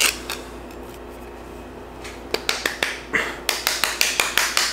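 Quick, sharp taps of a small metal food tin being worked by hand, beginning about two seconds in and repeating about three or four times a second.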